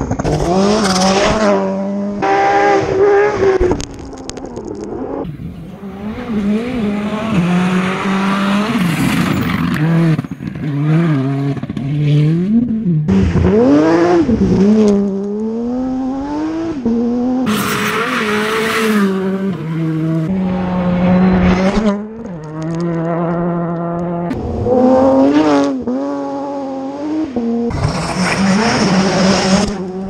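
Rally cars at speed on a gravel stage, several passes cut together: engines revving hard, pitch climbing and dropping with each gear change and lift, with tyres scrabbling on loose gravel.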